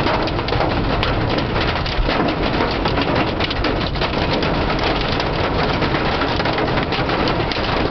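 Hail and heavy rain pelting the car's roof and windshield, heard from inside the car: a loud, dense, unbroken clatter of countless small impacts.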